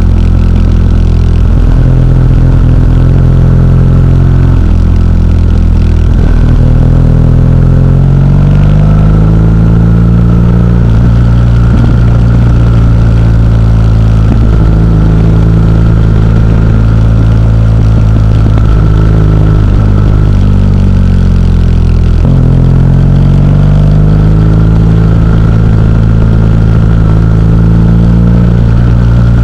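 Motorcycle engine heard from on board while riding at road speed, its note dropping and climbing again a few times as the rider changes gear and accelerates.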